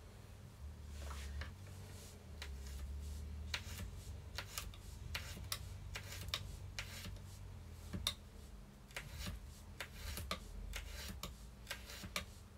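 Kitchen knife finely slicing garlic on a plastic chopping board: irregular sharp taps of the blade on the board, a couple a second, picking up a few seconds in.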